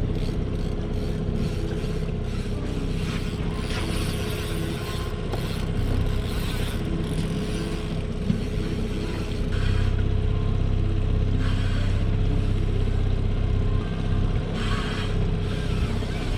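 Boat's outboard motor running steadily, with a constant low hum and a thin steady tone over wind and water noise. The hum gets stronger about ten seconds in.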